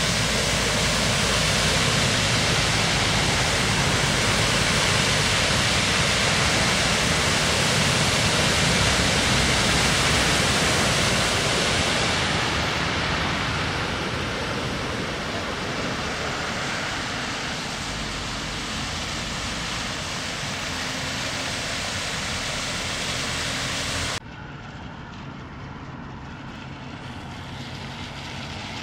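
Cars driving through deep flood water, their tyres throwing up spray with a loud, steady rushing hiss over the low sound of the engines. The hiss fades as the cars pass, and the sound drops off suddenly near the end.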